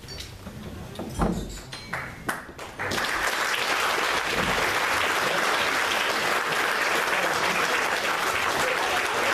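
A roomful of people applauding, breaking out about three seconds in and holding steady. A few short knocks come before it.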